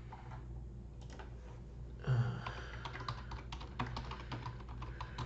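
Typing on a computer keyboard: a quick, irregular run of keystroke clicks starting about two seconds in, over a low steady hum.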